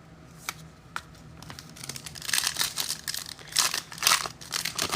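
Trading card pack wrappers being torn open and crinkled by hand: a few light ticks, then crinkling and tearing in spurts over the last three seconds.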